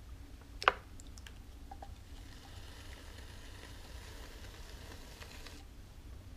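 Wet hands sliding against the wall of a clay cylinder turning on a potter's wheel, a soft wet hiss lasting a few seconds that stops shortly before the end. Before it comes one sharp click, with a low steady hum underneath.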